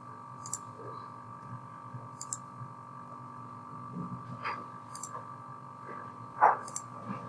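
Computer mouse button clicking about four times, each a quick double click, over a steady electrical hum. About six and a half seconds in there is a brief voice-like sound, the loudest thing in the stretch.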